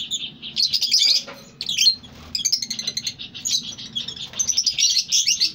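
Many caged lovebirds chirping at once, a dense, busy chatter of short high chirps that overlap without pause.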